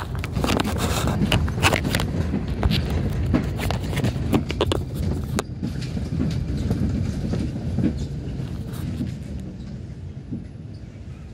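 Moving city bus heard from inside: a steady low rumble with a run of sharp knocks and rattles over the first five seconds or so, settling to a quieter, smoother rumble in the last few seconds.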